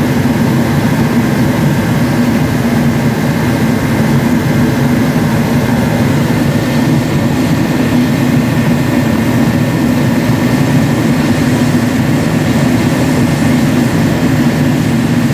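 Thermo Heat forced-air kerosene heater running steadily: the burner's roar and the fan motor's hum, with a faint steady high tone above. It is burning old fuel that the owner believes has water in it, with the pump pressure turned up to about 12 psi.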